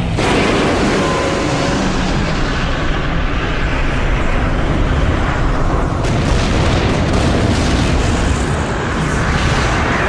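Monster sound effect for Godzilla Amphibia: a loud, rough rumbling that starts abruptly and runs on without a break.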